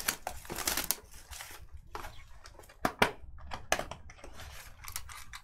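Plastic wrapping crinkling and cardboard clicking as a sealed trading card box is handled and opened, an irregular run of sharp clicks and rustles.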